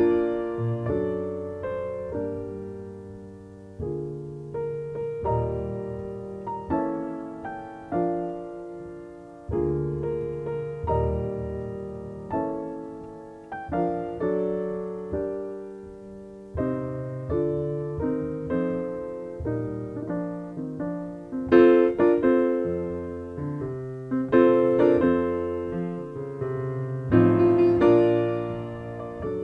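Slow solo piano music: notes and chords struck every second or two and left to ring and fade.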